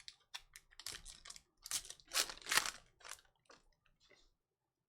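A trading-card pack wrapper being torn open and crinkled by hand, with the cards slid out. It comes as a run of short, irregular crackly rustles that are loudest midway and die away about four seconds in.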